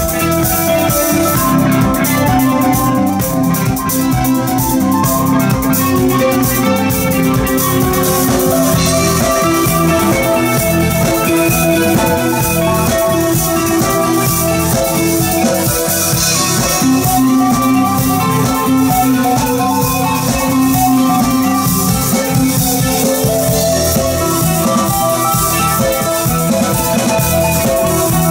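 Live instrumental ambient-rock band: electric guitar holding long sustained notes over electric bass and a drum kit played steadily throughout.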